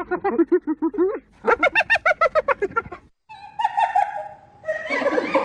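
Spotted hyenas giggling: two quick runs of chattering, rising-and-falling notes, the laugh-like call of a hyena. After a short gap about three seconds in, longer wavering calls follow.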